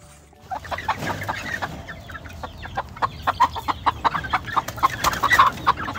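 Wire whisk beating thick pancake batter in a bowl: a fast, irregular run of clicks and wet slaps as the wires hit the bowl and the batter, starting about half a second in.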